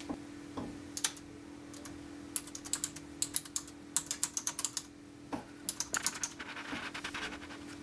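Typing on a Logitech Illuminated Keyboard: quick runs of key clicks in several bursts with short pauses between them, as a password is entered.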